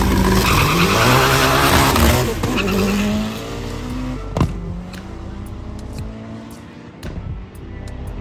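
Race car engine revving hard close by, its pitch rising and falling through gear changes, loudest for the first two seconds or so and then dropping to a quieter, steadier engine sound as it moves away.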